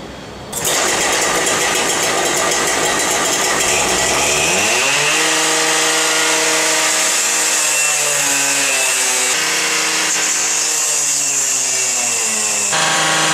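A small motor running loudly and steadily, its pitch rising about four seconds in, then holding with small wavers and a shift near the end.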